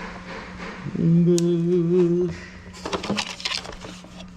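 A man hums one short, wavering note lasting about a second, followed by a few light clicks of handling. A steady low hum runs underneath.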